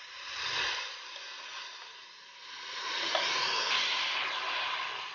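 Beef mince and chopped tomatoes sizzling in hot oil in a steel pot, growing louder about three seconds in as the added spices are stirred in with a spoon.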